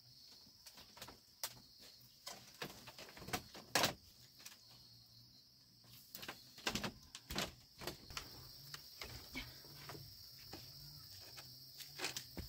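Scattered creaks, knocks and rustles of someone getting up and moving about on a bamboo sleeping platform and handling blankets, the loudest about four and seven seconds in, over a steady high insect drone.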